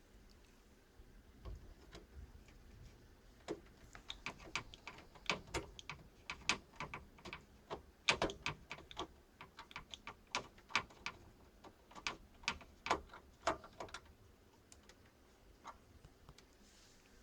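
A run of irregular sharp clicks and light taps, several a second, starting about three seconds in and thinning out near the end.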